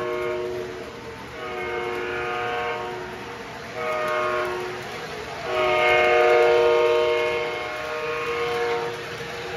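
Recorded chord horn from an MTH RailKing O-scale model locomotive's onboard sound system, sounding in repeated blasts: one ending just after the start, then a long blast, a short one, and a long, loudest one that stops shortly before the end.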